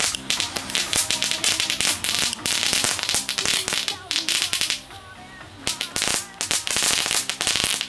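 Lesli Machine Gun Crackers, small F1 crackling tubes, going off in a dense, rapid series of sharp cracks and pops. Several tubes are firing at once. The crackling drops away briefly about five seconds in, then starts again.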